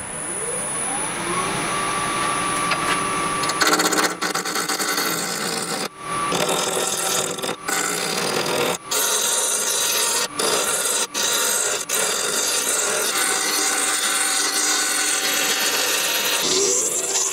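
Wood lathe motor spinning up with a rising whine, then a turning tool cutting into a spinning blank of elm burl and epoxy resin: a loud, steady, rough cutting hiss broken by several brief gaps. Near the end the lathe's whine rises again as the speed is turned up.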